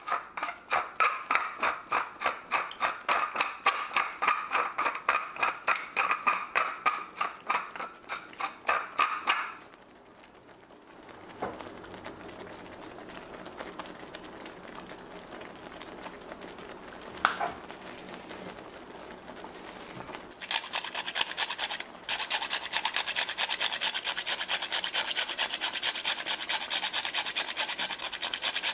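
Hand spice grinder cranked in quick, even crunching strokes, about three or four a second, for roughly ten seconds. After a quieter stretch with a single click, a small handheld metal grater is scraped rapidly and continuously from about twenty seconds in.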